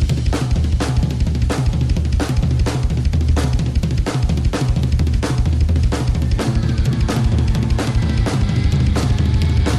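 Instrumental rock music with no vocals: a drum kit plays a steady beat of bass drum, snare and cymbals over a bass line.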